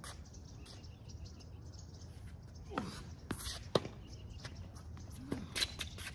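Tennis rally on a hard court: a few sharp pops of the ball being struck by racket strings and bouncing off the court surface, the loudest a little under four seconds in.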